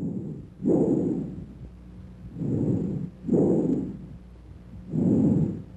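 Bronchial breath sounds as heard through a stethoscope over the chest: loud, fairly high-pitched breath noise, each breath in and breath out separated by a short silent gap, about three breaths in a row.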